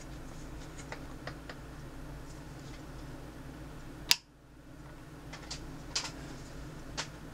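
A few small, sharp clicks and taps over a low, steady hum. The loudest click comes a little past halfway, and the hum briefly dips right after it.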